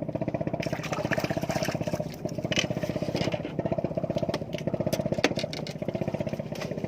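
A small engine running steadily with a rapid, even pulse, joined by a few short clicks.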